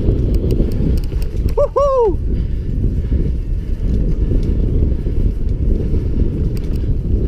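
Mountain bike ridden fast over a dirt singletrack, heard from the handlebar camera: a steady low rumble from the tyres on the trail, with light rattling clicks from the bike. About two seconds in, a short pitched sound in two parts rises and falls.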